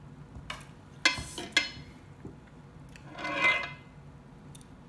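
A metal fork knocks twice against a white baking dish, sharp clinks with a brief ring, then scrapes along the dish for most of a second a couple of seconds later.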